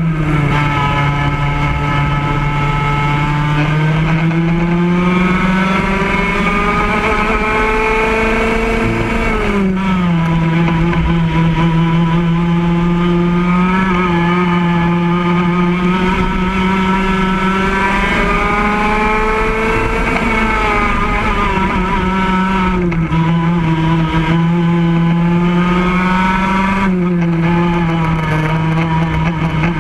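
Racing kart engine heard up close from on board, its pitch climbing steadily as the kart accelerates and falling sharply each time the driver lifts for a corner, several times over.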